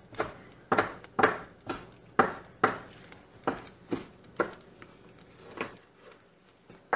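Kitchen knife rough-chopping roasted onions on a wooden cutting board: about a dozen sharp knocks of the blade striking the board, roughly two a second, that stop near the end.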